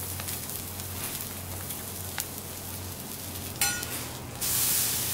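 Pieces of Patagonian toothfish frying on a teppanyaki griddle, with faint sizzling and light clinks from a metal spatula and tongs. About three and a half seconds in there is a brief metallic scrape, followed by a much louder, steady sizzle.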